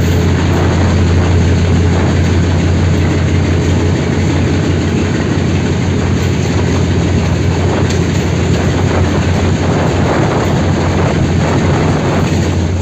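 Diesel locomotive running light along the track: a steady, loud engine drone with the rumble of the wheels on the rails.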